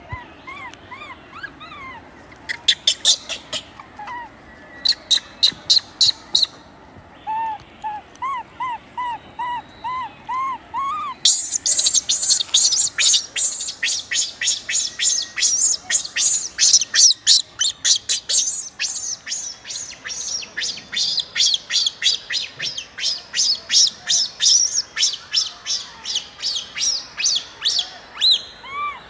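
Infant rhesus macaque crying: short arched whimpering coo notes, then a long run of fast, shrill, sharp cries about three a second, starting about a third of the way in and stopping near the end.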